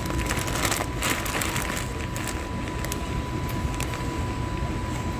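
Plastic bags of pistachios crinkling and crackling as a hand handles them, mostly in the first two and a half seconds, over a steady low background rumble with a faint steady high tone.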